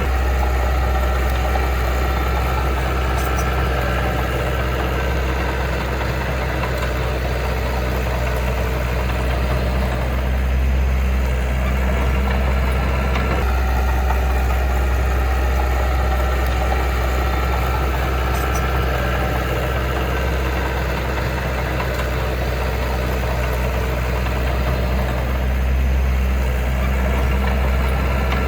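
Heavy diesel engine of earthmoving equipment running steadily with a deep, even drone.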